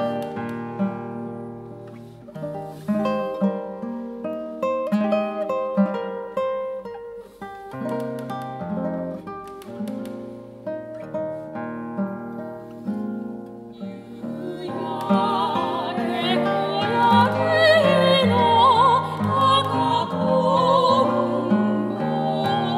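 Classical nylon-string guitar playing plucked melody notes and chords alone; about fifteen seconds in a soprano voice enters, singing with vibrato over the guitar accompaniment.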